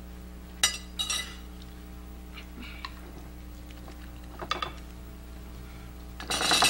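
Cutlery and serving utensils clinking against plates and a pan as food is served and eaten: a few scattered clinks, then a louder, quick run of clatter near the end, over a steady low electrical hum.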